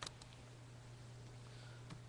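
Near silence: room tone with a steady low electrical hum, and a few faint clicks near the end.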